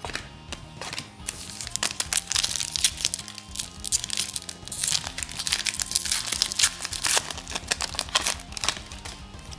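Foil wrapper of a trading-card pack crinkling and being torn open by hand, a dense run of crackles that starts about a second in and dies away near the end. Background music plays underneath.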